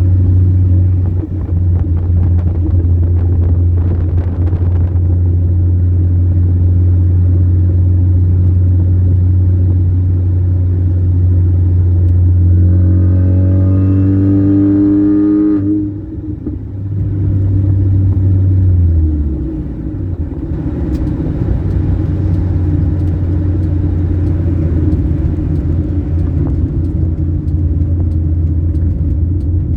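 Supercharged 1.6-litre four-cylinder of a 2004 Mini Cooper S with a Sprintex supercharger kit and aftermarket exhaust, running under way with a steady low drone. About halfway through the engine revs up with a climbing pitch, then drops off briefly, and a few seconds later the drone falls in pitch before settling back to steady running.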